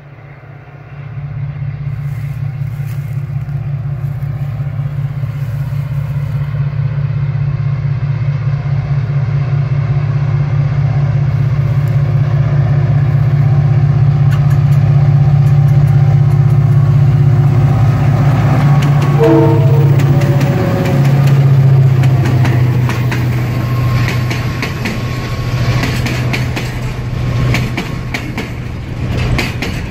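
Two EMD-designed diesel-electric freight locomotives approach with a steady low engine drone that grows louder, dropping in pitch as they pass about two-thirds of the way in. It is followed by the rhythmic clickety-clack of container wagon wheels over the rail joints.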